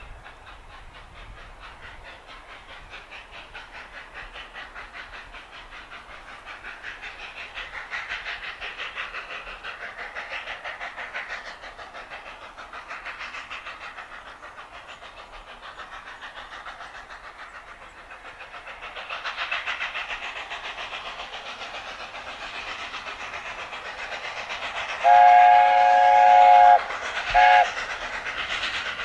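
Steam locomotive running with a steady rhythmic beat that grows louder. Near the end its whistle sounds one long blast, then a short one.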